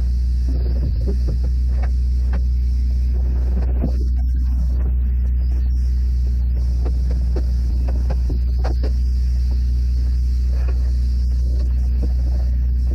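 Spray foam insulation equipment running: a steady low drone with a faint hiss over it and a few scattered light clicks.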